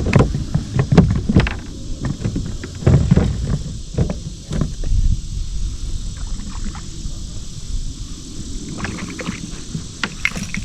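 Irregular knocks and clunks of gear being handled on a kayak, busiest early on and again near the end, over a low wind rumble on the microphone.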